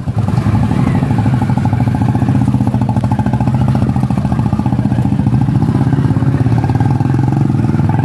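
Motorcycle engine running steadily close by, its firing coming as a fast, even putter.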